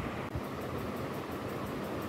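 Steady background hiss with a run of faint light ticks from metal knitting needles working yarn.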